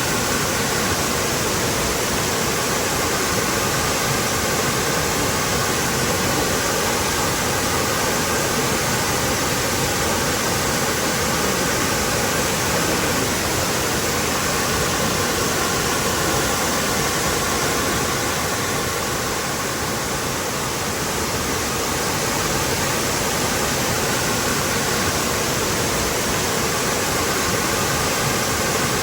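Waterfall pouring steadily, a dense even rush of falling water with no breaks.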